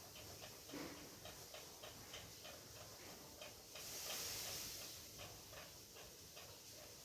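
Ceiling fan running, with a faint, even ticking of about three clicks a second and a brief swell of airy hiss about four seconds in.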